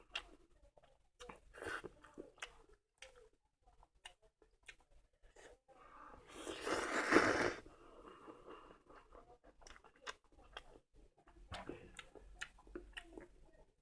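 A person eating instant stir-fried noodles close to the microphone: wet mouth clicks and chewing throughout, with one loud hissing sound lasting about a second and a half, about halfway through.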